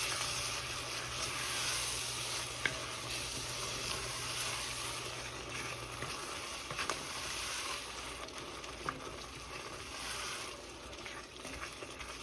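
Onion, tomato and yogurt curry base sizzling in ghee in a heavy saucepan as it is stirred, with a few light clicks of the spoon against the pan.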